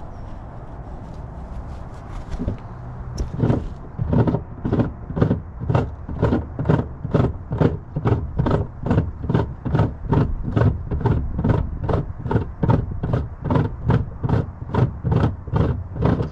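Rhythmic scraping strokes, about two to three a second, starting about three and a half seconds in, as the white plastic screw that holds the Renault Clio 4's spare-wheel cradle under the car is turned counterclockwise to lower the wheel.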